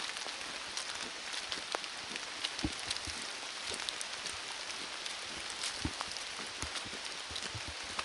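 Raindrops pattering steadily, many scattered drops ticking irregularly over a soft hiss.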